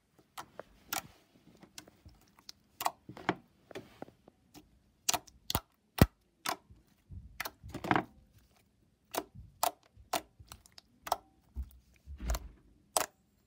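Glossy slime being pressed and poked with fingers, giving an irregular run of sharp clicks and pops as trapped air bursts out, with some softer squishing in between.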